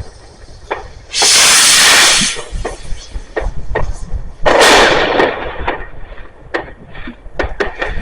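Fireworks going off: two loud rushing bursts about a second long, one about a second in and one just past the middle, amid many sharp bangs and crackles.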